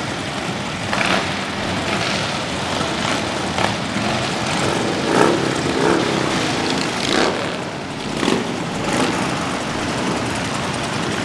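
A long line of motorcycles, mostly big touring bikes, riding slowly past at parade pace, engines running in a continuous rumble. It swells several times as individual bikes pass close.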